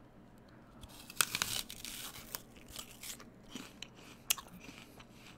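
A bite into a firm, crunchy SugarBee apple about a second in, with a burst of crisp crunches, then chewing with scattered softer crunches.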